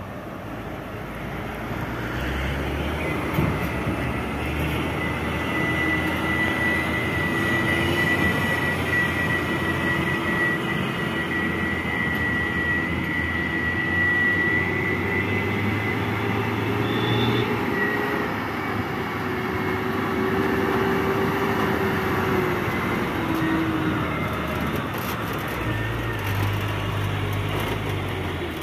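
Heavy dump trucks' diesel engines running and driving on a construction site, a steady low rumble that rises and falls. A thin high whine sounds for several seconds in the first half.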